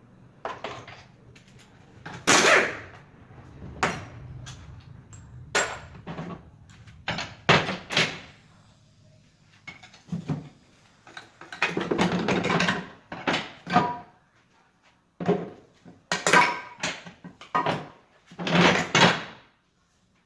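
Irregular metallic clanks, knocks and rattles of tools and gearbox parts being handled while a manual transmission is taken apart, with two longer rattling clatters in the second half.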